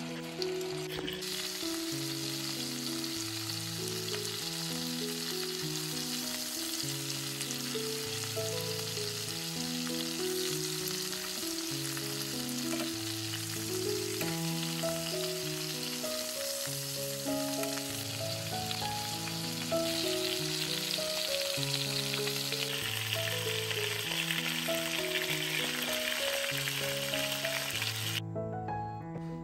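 Chicken legs frying in olive oil and butter in a pan: a steady sizzle that starts about a second in, gets louder about two-thirds of the way through, and cuts off shortly before the end. Soft background music with slow stepping notes plays under it.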